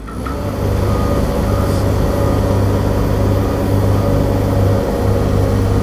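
Diesel engine running steadily with a deep, even drone. It swells up in the first half second, then holds.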